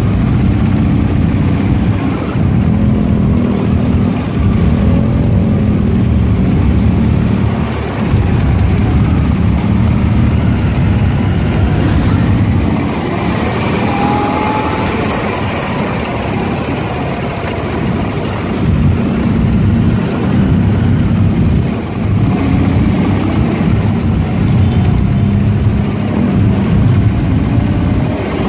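Ural sidecar motorcycle's air-cooled flat-twin engine running steadily on a slow ride, amid the engines of a large group of other motorcycles. There are two brief dips in level, about eight seconds in and again near twenty-two seconds.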